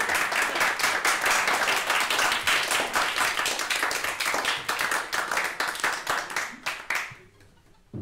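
A small audience applauding, individual claps distinct, dying away about seven seconds in.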